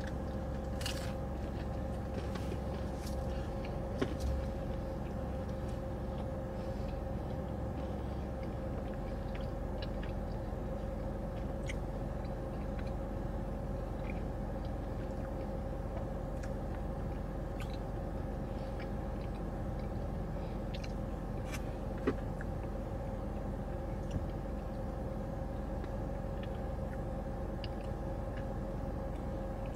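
Steady hum of a car idling, heard inside its cabin, with faint crunches of thin-crust pizza being chewed. A few sharp clicks stand out, the loudest about 4 and 22 seconds in.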